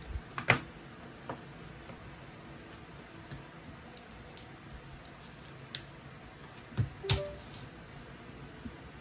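Scattered key presses and clicks on a low-profile computer keyboard, a few sharper taps among them, over a faint steady room hum.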